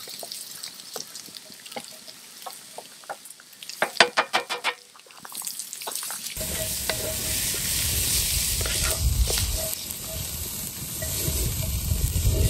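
Diced onion, carrot and celery sizzling in a cast-iron Dutch oven as they are stirred, with crackling ticks and a quick rattling run of clacks about four seconds in. From about halfway, wind buffets the microphone with a low rumble under the sizzle.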